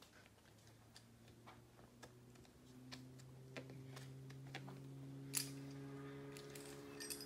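Faint scattered ticks and taps of a rock climber's hands and shoes moving on the rock face, under a faint steady low hum that builds from about a second in and cuts off near the end.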